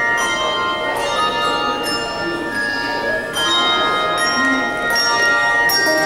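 Handbell choir ringing a piece: chords of several handbells struck together, each chord ringing on under the next.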